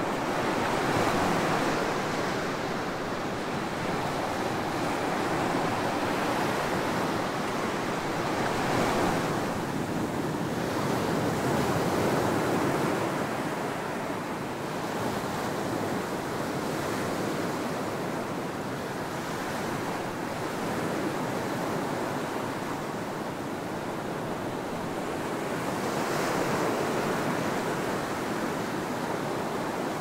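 Ocean surf breaking and washing up a sandy beach: a steady rushing wash that rises and falls as each wave comes in, with louder swells every few seconds.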